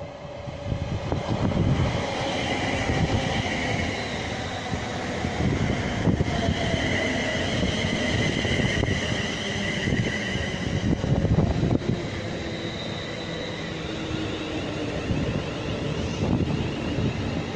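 A train running close past the platform: a loud, steady rumble that builds over the first two seconds, with wavering high-pitched whining tones above it.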